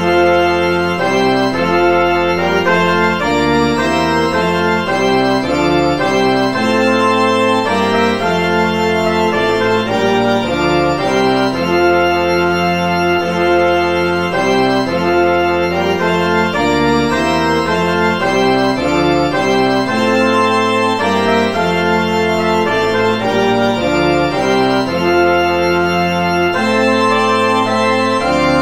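Organ playing a hymn tune instrumentally in slow sustained chords over a moving bass line.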